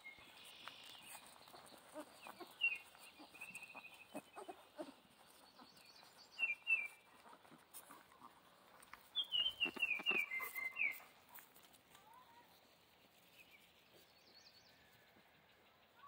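Central Asian Shepherd puppies squeaking and whimpering while nursing. The cries are short and high-pitched, loudest as a quick run of falling squeaks about nine to eleven seconds in.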